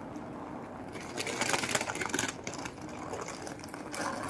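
Rolling suitcase wheels rattling over tiled paving, louder in the middle of the stretch.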